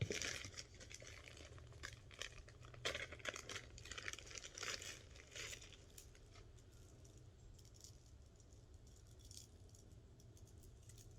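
Faint crinkling of packaging with light clicks as bags of stone bead bracelets are handled, busiest in the first half, then only scattered ticks.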